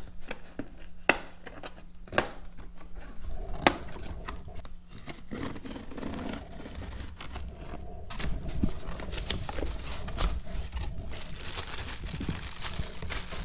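Scissors cutting plastic packing straps on a cardboard box, with three sharp snaps in the first four seconds. Then cardboard flaps and plastic wrapping rustle and crinkle as the box is opened.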